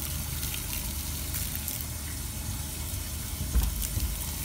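Water poured from a plastic bottle over a person's head to rinse her hair, running off and splattering onto the grass in a steady hiss, with a low rumble underneath.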